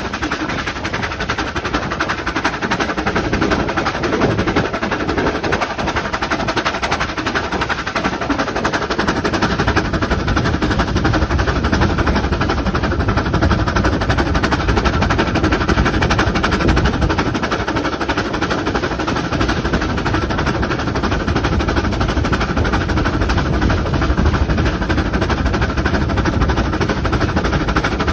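Narrow-gauge steam locomotive working along the line, heard from the footplate: a fast, steady run of exhaust beats with the running noise of the engine under way.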